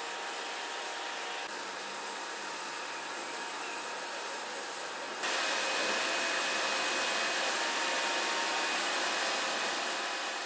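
Steady hiss of spraying water, jumping louder about halfway through.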